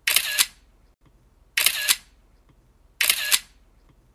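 Camera-shutter sound effect of webcam snapshots being taken, three times about a second and a half apart, each a short click-clack.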